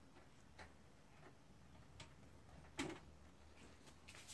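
Quiet room with a few faint light taps and one soft thump about three seconds in: a kitten landing as it jumps down onto a lower platform of a cat tower.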